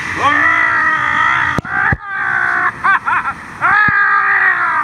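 A man yelling in long, held cries as he rides an inflatable ring down an enclosed water-slide tube, with a few short yelps in the middle and two sharp knocks about a second and a half and two seconds in.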